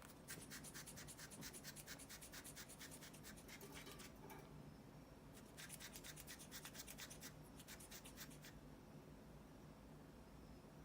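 Male cockatiel huffing rapidly through its nostrils, a quick run of short breathy puffs about five a second, in two bouts with a short pause between them: his courtship display to a female.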